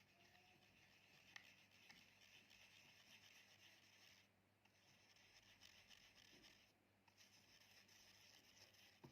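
Faint scratching of a drawing tool stroking across a surface, in three long strokes with short pauses between them.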